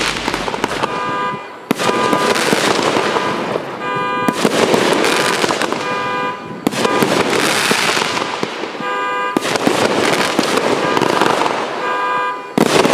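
Consumer aerial finale cakes from a 72-shot, three-piece finale set firing a continuous barrage of shots, bursts and crackle. The sound comes as several spliced clips that cut off abruptly every two to three seconds. A short, horn-like steady tone is heard near the end of each clip.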